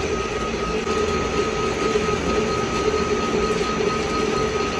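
Metal lathe running with its chuck spinning a steel bar while a cutting tool faces the bar's end: a steady machine hum with a faint high steady tone.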